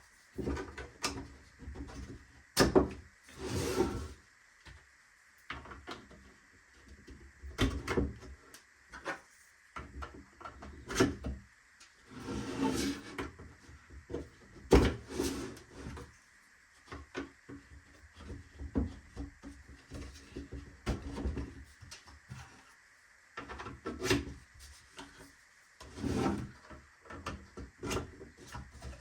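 Printed plastic toolbox parts being handled and worked by hand: irregular clicks, taps and scraping rubs, with a sharper knock about fifteen seconds in.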